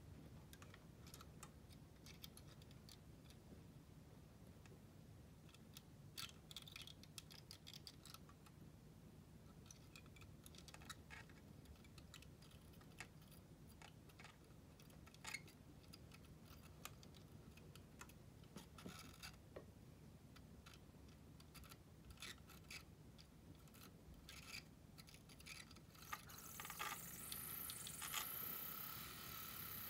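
Faint clicks and scrapes as a small Kato model-railway flywheel motor unit is handled on plastic track. Near the end the failing motor starts to run, with a hissing, high-pitched whir that rises and falls in pitch.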